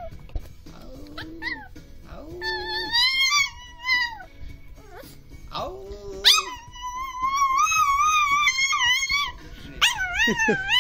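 Chihuahua howling in long, wavering high notes, loudest and most sustained from about six seconds in, with shorter lower-pitched tones in between.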